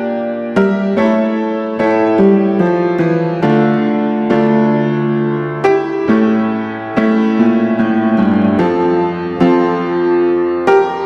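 Background piano music: sustained notes and chords struck one after another, about one or two a second.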